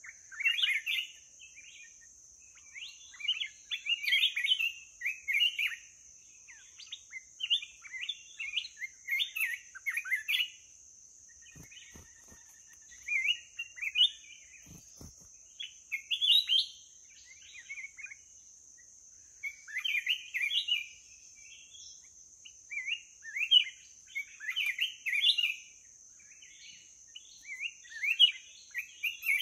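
Black-crested bulbul singing short, quick, warbling phrases in repeated bouts, over a steady high-pitched hiss.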